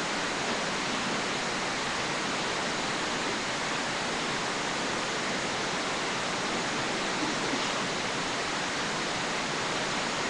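A steady, even hiss that stays the same level throughout.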